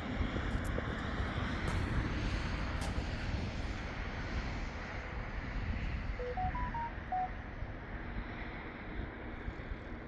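Steady rushing outdoor noise, with a quick run of five short electronic beeps at different pitches about six seconds in.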